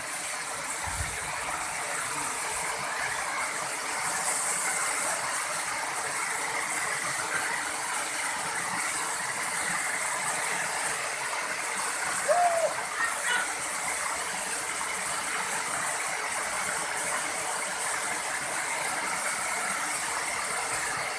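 Waterfall rushing steadily, a continuous hiss of falling water. A brief squeak-like sound comes about twelve seconds in.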